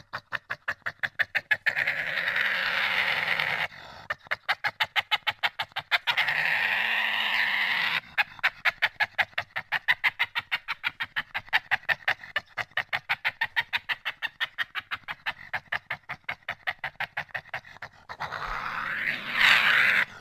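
Badger calling: a rapid run of short pulsed calls at about five a second, broken three times by longer unbroken calls of about two seconds each.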